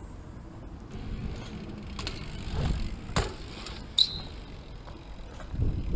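Bike tyres rolling and rumbling on concrete, with several sharp knocks as the bike goes up over a box and lands, and a brief high squeal with a knock about four seconds in.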